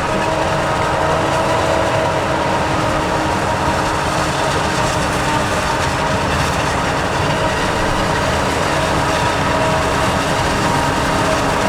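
Heavy diesel farm machinery running steadily under load, with a constant whine of several steady tones over the engine noise.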